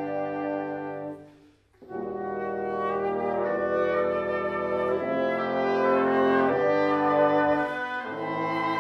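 Wind ensemble with French horn playing sustained chords. The sound dies away about a second and a half in, and after a short break the chords come back in near two seconds.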